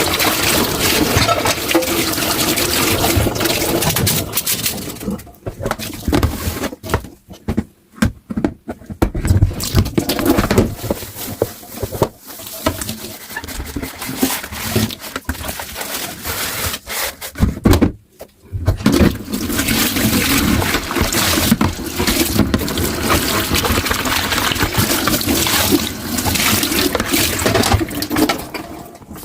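Kitchen tap running into a sink during dishwashing, as a steady rush of water. It stops and starts, breaking off from about five seconds in for several seconds with a few scattered knocks, and again briefly around eighteen seconds in.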